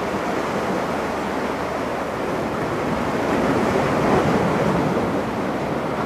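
Sea waves washing in a steady rush of noise, mixed with wind, swelling a little in the second half.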